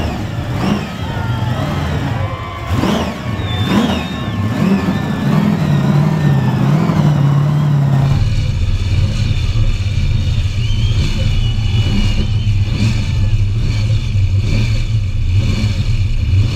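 Supercharged big-block V8 of a VF Commodore revving hard and screaming during a burnout, its pitch sweeping up and down. About halfway through the sound changes abruptly to a steadier, high-revving engine note.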